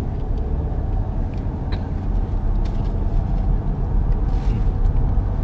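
Inside the cab of a pickup truck on the move: steady low rumble of engine and road noise.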